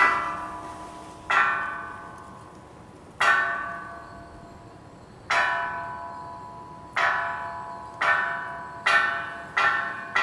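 Korean temple wind bell (pungyeong) hanging from the eaves, its clapper swinging in the wind and striking the bell at uneven intervals, about eight times. Each strike rings and dies away over a second or two, and the strikes come closer together near the end.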